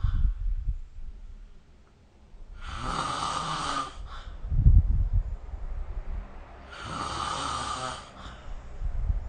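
A person snoring in sleep: low rattling snores alternate with loud, noisy breaths in a slow, regular rhythm, about two breath cycles in all.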